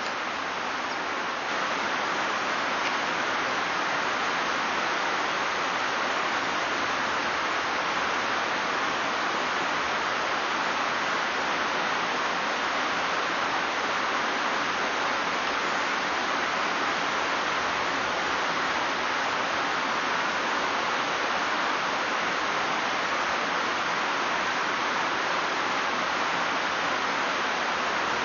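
Steady rush of white water in a fast mountain river, with no pitch or rhythm. It gets slightly louder about a second and a half in.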